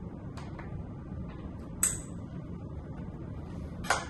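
Light clicks and one sharp metallic clink from hands working a Sky-Watcher EQ6-R Pro telescope mount, with a short clatter of cable and plug handling near the end, over a faint steady hum.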